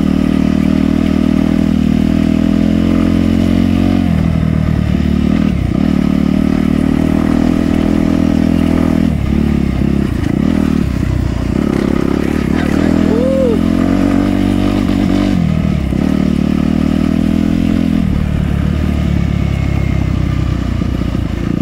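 Suzuki dirt bike engine running while riding along a dirt trail. Its note dips and picks up again several times as the throttle is eased and reopened.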